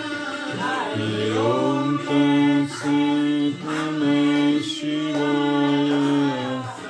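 Devotional bhajan sung by a group of voices together, long held notes stepping up and down between short breaks.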